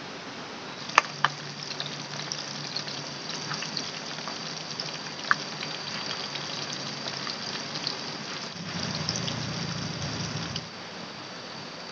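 Slabs of tempeh frying in hot oil in a pan over a wood fire, a steady sizzle with scattered small pops and a few sharp cracks.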